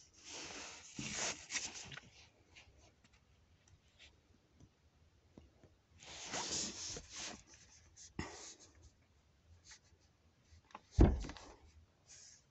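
Fabric rubbing against a phone's microphone in bursts of rustling, with one sharp, louder thump about eleven seconds in.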